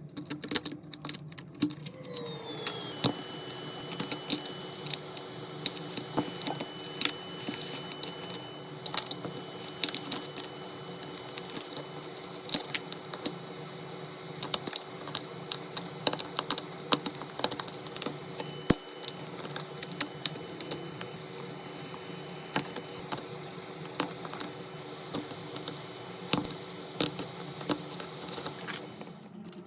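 Cracked iPhone back glass being picked and scraped away, a long run of small, sharp clicks and clinks. A steady machine hum starts about two seconds in, its pitch dropping briefly as it comes on.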